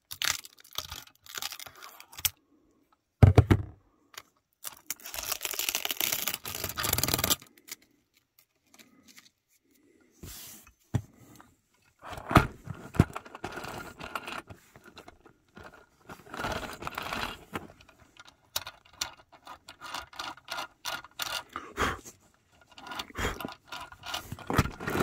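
Scraping, crinkling and clicking as bits of packing are picked and scraped off a die-cast model excavator's metal tracks, with a loud knock about three seconds in.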